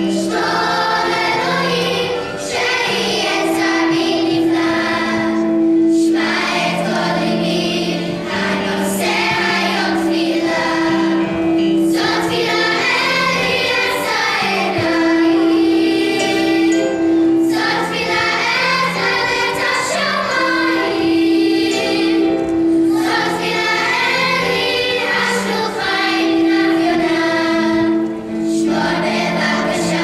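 Children's choir singing together with electric keyboard accompaniment, in phrases with long held notes and short breaks between them.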